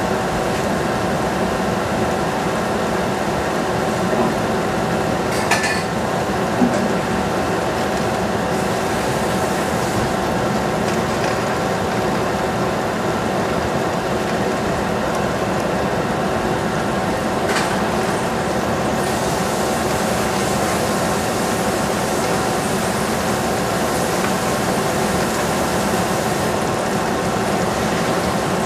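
Steady machine hum with a constant whine, like a motor or fan running, from a kitchen where vegetables cook on a gas stove; two faint clicks come about five and seventeen seconds in.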